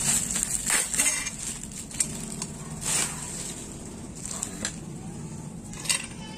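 Plastic wrapping and bubble wrap crinkling and rustling as they are handled and pulled off, with several sharp crackles.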